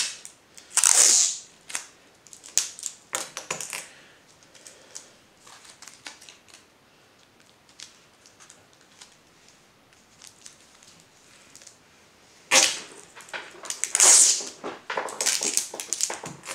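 Masking tape being pulled off the roll and torn, once about a second in and again near the end. Paper rustles and light clicks of hands and straws on the table come in between.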